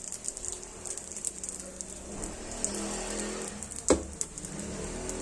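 Bouchiyar dough frying in a hot oiled pan, giving a light, steady crackling sizzle, with one sharp knock about four seconds in.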